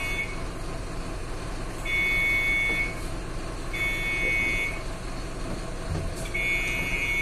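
Bus stop-request bell buzzers sounding in three separate electronic tones of about a second each, about two seconds apart, over a steady low hum. The bells are being pressed one after another as part of the pre-departure check that each one works.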